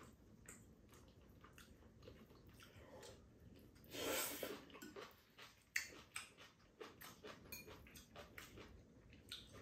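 Quiet eating sounds: a slurp of spaghetti noodles about four seconds in, then chewing and a few light clicks of chopsticks against bowls.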